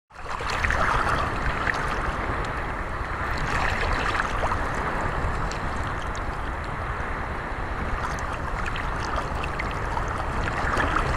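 Steady wash of surf and wind on the microphone, starting abruptly and holding on evenly.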